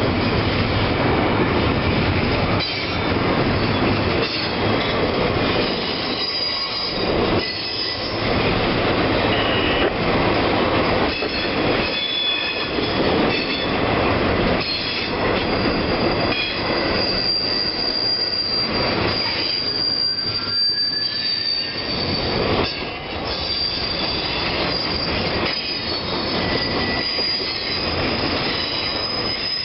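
A long freight train's cars rolling past close by, a steady rumble of steel wheels on rail with thin, high wheel squeal coming and going over it.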